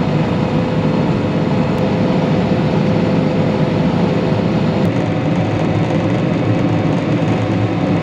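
John Deere combine harvester running steadily while harvesting barley, a constant machine noise with a steady whine through it; it is taking in the straw without labouring.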